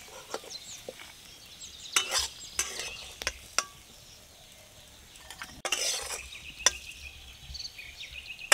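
Metal spatula scraping fried lentil paste around a hot metal kadai and out into a bowl, in a few separate strokes, a cluster about two to three seconds in and another about six seconds in.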